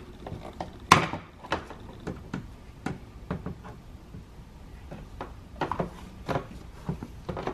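Scattered sharp clicks and light knocks of pliers squeezing the tabs of plastic push-pin clips and pulling them out of a car door panel, the loudest snap about a second in.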